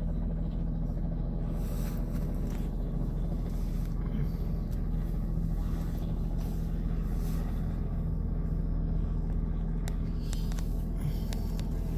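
Small helicopter hovering low as it comes in to land: a steady low drone of rotor and engine, heard from inside a car.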